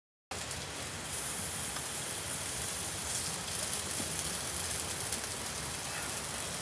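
Food frying on a hot pan, a steady sizzle with a few faint pops, starting suddenly just after the start.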